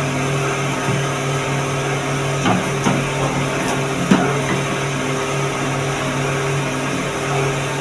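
A steady low machine-like hum runs throughout, with two sharp knocks about two and a half and four seconds in, as a utensil strikes the metal soup pot.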